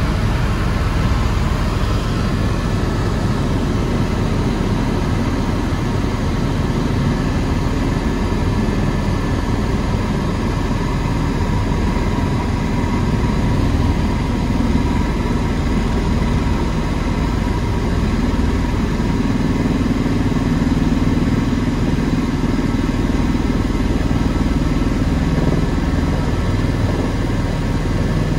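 Tour helicopter in flight heard from inside the cabin: a loud, steady drone of engine and rotor with a steady hum running through it.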